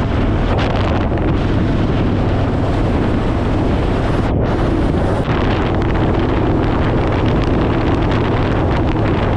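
Heavy wind rushing over the microphone while riding at highway speed, with the Harley-Davidson Fat Boy's V-twin engine running steadily underneath. The rush is loud and even, with a brief thinning of the hiss about halfway through.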